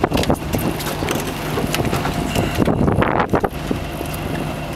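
An engine running steadily at a low hum, with wind buffeting the microphone and scattered clicks and knocks; a louder rush of noise comes about three seconds in.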